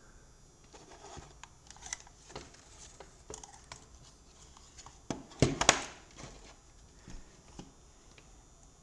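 Scattered small clicks and rustling from hands handling things at a workbench, with a louder clatter about five and a half seconds in.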